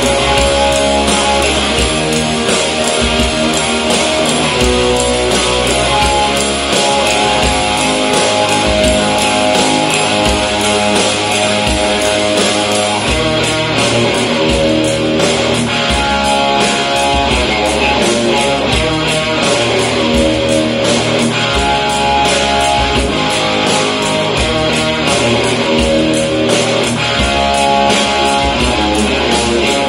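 Guitar-driven music with a steady drum beat, played over Bluetooth through a Konzert SBX-5.1CH 5.1-channel soundbar and subwoofer system as a demo of its sound.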